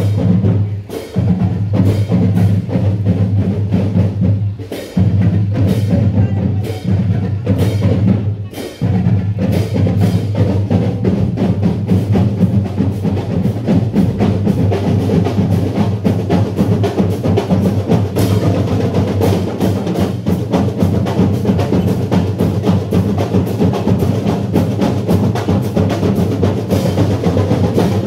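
Marching band drum section playing a steady parade cadence on snare and bass drums, with sharp rim or stick clicks on the beat. The beat drops out briefly a few times in the first ten seconds, then runs on evenly.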